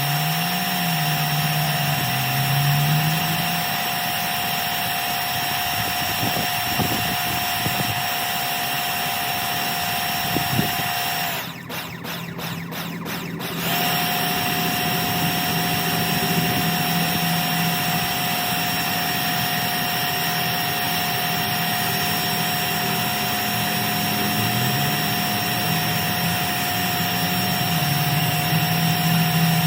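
Steady motor noise with a constant high whine, interrupted for about two seconds near the middle.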